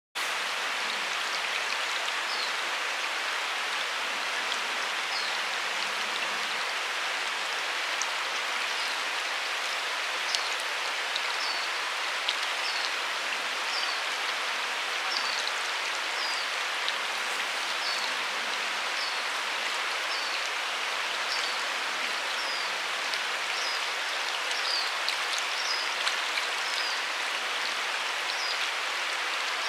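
Steady rush of flowing river water. A small bird gives short, high call notes over it, about one a second, starting a couple of seconds in.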